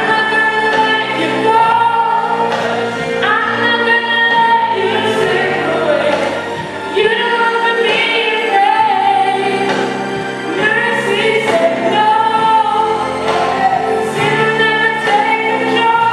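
Choir singing a gospel song with musical accompaniment.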